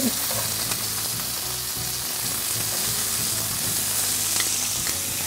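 Lamb steaks sizzling in hot avocado oil in a cast-iron skillet: a steady frying hiss.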